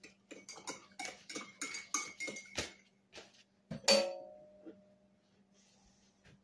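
Spoon knocking and scraping against a dish in quick strokes, about five a second, as food is stirred. After a short pause comes one loud metallic clank with a brief ring, as a utensil or pot is set down.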